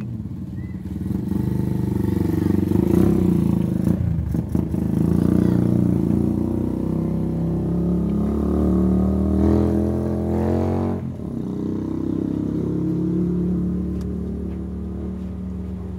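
A motor vehicle engine running, its speed drifting slowly up and down, with a couple of short knocks about four and eleven seconds in.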